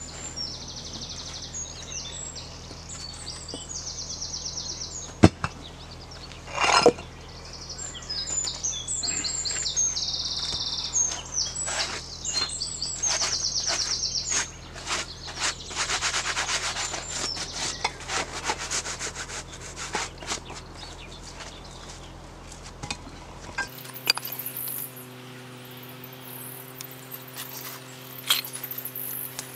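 Flat stones and soil being worked by hand in a shallow dirt pit: a couple of sharp stone knocks about five and seven seconds in, then a stretch of scraping and rubbing as soil is cleared and a stone is bedded down. Songbirds sing repeated trills through the first half.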